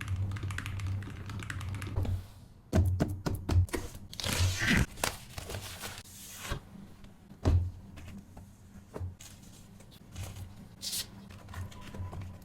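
Unboxing a mechanical keyboard's box and packaging: scattered knocks and clicks, a quick run of them about three seconds in, with short bursts of rustling or tearing of the packaging about four seconds in and again near the end.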